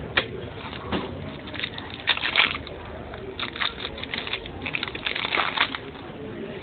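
Trading-card pack wrapper crinkling and rustling as it is torn open and the cards are handled, in irregular bursts that are densest through the middle.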